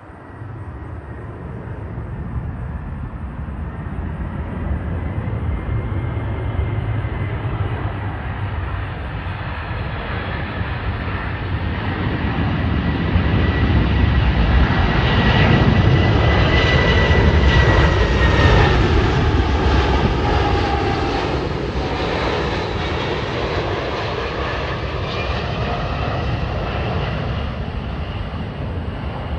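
Jet engines of a low-flying three-engine FedEx cargo jet on landing approach with its gear down. A rumble with a high whine swells to its loudest as the plane passes overhead about halfway through. The whine then drops in pitch and the sound slowly fades.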